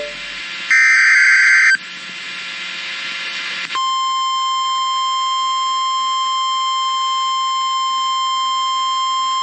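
Emergency Alert System signal: one burst of the SAME header's harsh digital data screech, then about two seconds of hiss, then the steady 1050 Hz NOAA Weather Radio alert tone starting about four seconds in and holding unchanged.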